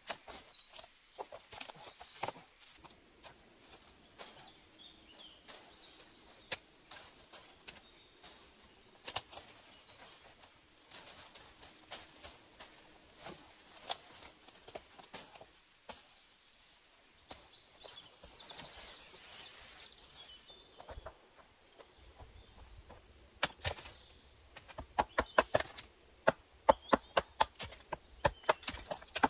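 Hand-tool work on wood: scattered light knocks, snaps and handling rustle, then, about three-quarters of the way through, a steady run of sharp strikes at about three a second, as of a hatchet or hammer hitting wood.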